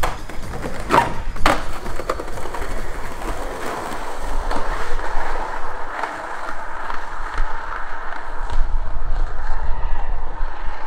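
Two sharp clacks of a skateboard about a second in, then its wheels rolling steadily over street pavement, the roll growing louder toward the end.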